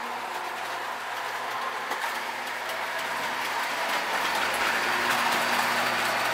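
Modern Marx toy train running on three-rail tinplate track: a steady rolling rattle with a low hum, growing louder from about halfway through as the train approaches.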